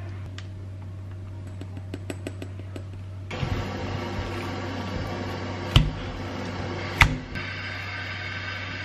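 Hand mixing of minced beef in a bowl, with two sharp slaps of the meat about six and seven seconds in, over a steady low machine hum. Light clicks come in the first few seconds.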